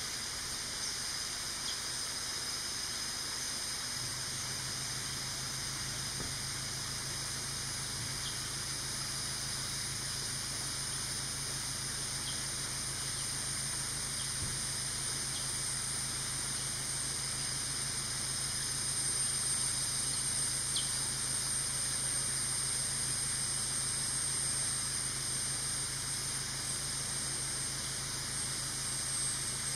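Steady high-pitched insect chorus in tropical forest, swelling a little past the middle. A low steady hum joins about four seconds in, with a few faint ticks.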